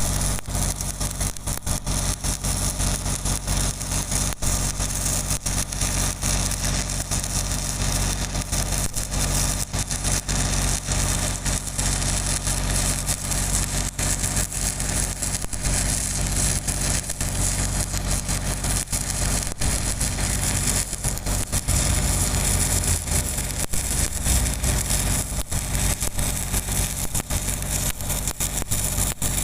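Arc welding on a 300 mm pipe: the steady crackling hiss of the arc over the steady hum of an engine running.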